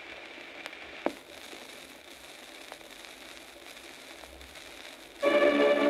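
Surface hiss and crackle of a 1930s 78 rpm shellac record playing its lead-in groove, with a sharp click about a second in. Near the end the brass band march begins.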